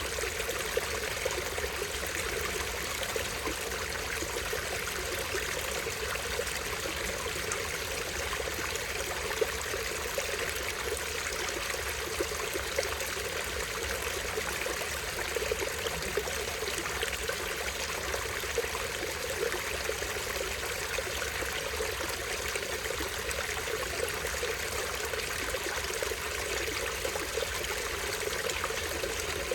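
Shallow stream running over a tiny waterfall: a steady, even trickling rush of water.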